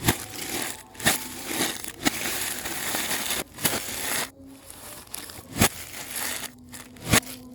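Packaging being handled and crumpled: a dense crinkling and rustling broken by several sharp cracks, quieter in the second half.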